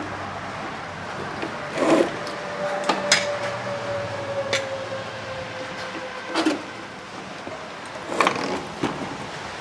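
Scattered knocks and clicks from hands working at a MIG welder, about six in all, over a faint low hum. A faint thin whine runs through the middle, sinking slightly in pitch until it stops about six and a half seconds in.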